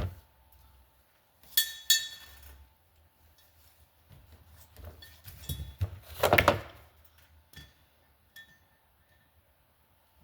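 Small steel valve-train parts and hand tools clinking during motorcycle cylinder head disassembly: two sharp, ringing metal clinks about a second and a half in, then a longer spell of clattering and scraping around six seconds in as the valve stem seal is worked off.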